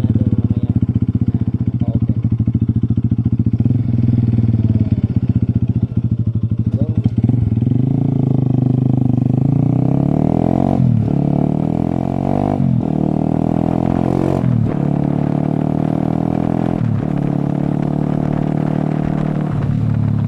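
Motorcycle engine running, picked up by a microphone inside a closed-visor helmet. It idles at first, then pulls away about seven seconds in and accelerates. Its pitch drops sharply and climbs again about five times as the rider shifts up through the gears.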